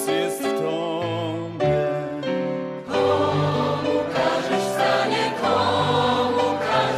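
Choral music: a choir singing slow, sustained notes.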